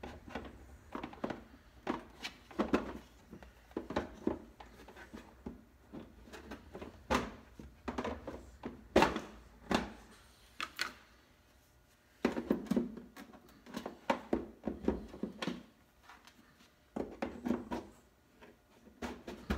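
Milwaukee PackOut Ammo Can's plastic case and dividers being handled: a long, irregular run of knocks, clicks and clunks, with a few louder ones about nine seconds in and between twelve and fifteen seconds.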